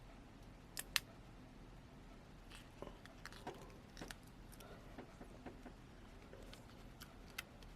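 Faint crackling and small clicks of adhesive tape being peeled slowly off a smartphone's frame, with two sharper clicks about a second in.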